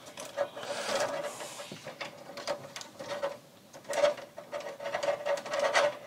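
Electrical wires being handled, twisted together and folded into a metal breaker panel: a run of small clicks, scrapes and rustles, over a steady hum.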